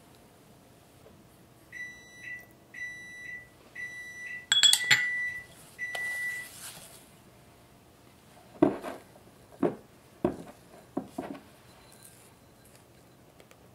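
A kitchen appliance gives about six short electronic beeps at one high pitch over four seconds or so, with a sharp click in the middle. Later a spatula knocks against a bowl four or five times while it scoops cocoa sponge batter.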